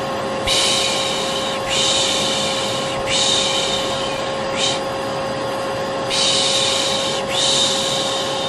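Vacuum cleaner motor running with a steady hum, while a person makes soothing 'shh' shushing sounds over it again and again, each about a second long with short breaks between, as white noise to lull a baby to sleep.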